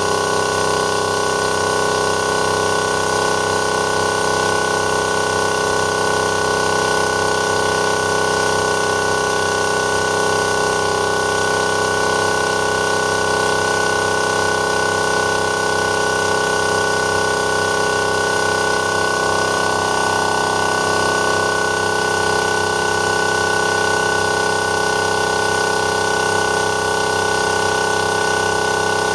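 12 V DC reciprocating-piston air compressor (TWO STAR HT25L-15A) running steadily as it pumps up a 25-litre air tank, working against pressure rising from about 75 to nearly 100 psi.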